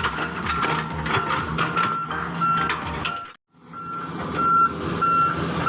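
Heavy construction machine's reversing alarm beeping steadily, about two beeps a second, over the low rumble of its engine; the sound drops out briefly just past halfway.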